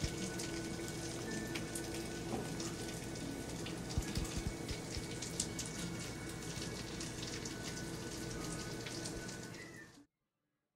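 Freshly cooked ribeye steak sizzling and crackling, a dense patter of small pops as its hot fat and juices spit, with a steady hum underneath; it cuts off abruptly near the end.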